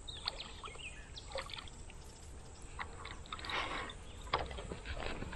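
Water splashing in brief, scattered bursts as a hooked carp is played on a float rod near the surface, with faint bird chirps in the first second or so.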